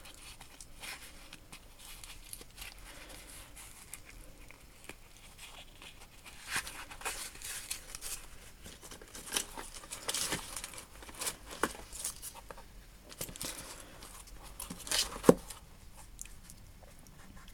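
Quiet crinkling and rustling of wrapping being handled and opened, with scattered light clicks and one sharper click about fifteen seconds in.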